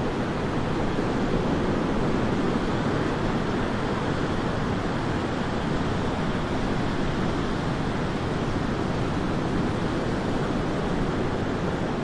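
Sea surf washing steadily over a rocky shore: an even, unbroken rushing noise.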